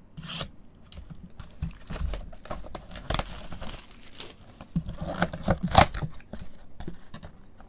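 Plastic shrink wrap being slit with a box cutter and pulled off a cardboard trading-card box, crinkling and tearing, then the box's cardboard flap being pried open with scrapes and a sharp click about six seconds in.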